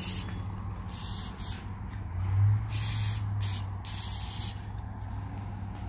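Aerosol brake cleaner sprayed through a straw nozzle into a freshly welded hydraulic cylinder fitting in several short hissing bursts, flushing weld debris out of the tube. A low steady hum runs underneath.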